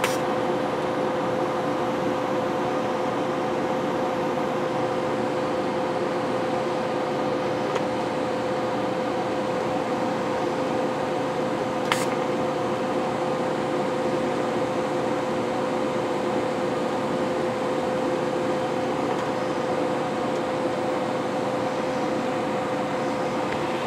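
Electric arc welding a steel ear onto a bearing carrier, with the welder running as a steady hum holding one even tone. There is a faint click at the start and another about halfway through.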